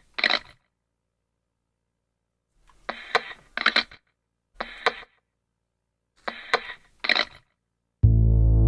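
Computer mouse clicks in small groups of one or two, with dead silence between them. Near the end, synthesizer music with a deep, steady bass starts abruptly and is the loudest sound.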